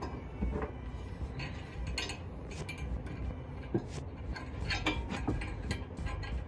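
Scattered metal clicks and clinks from the steel pins and latch handles at the base of a B&W Companion fifth-wheel hitch being worked by hand, as the hitch is unlatched from the truck-bed mounts for removal.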